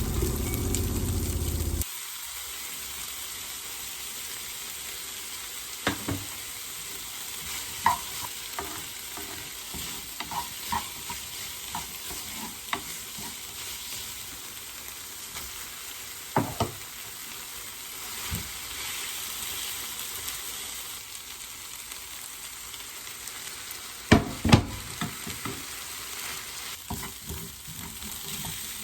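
Food sizzling in a frying pan while it is stirred, with a utensil scraping and knocking against the pan now and then, including two sharper knocks near the end. A louder low rumble cuts off suddenly about two seconds in.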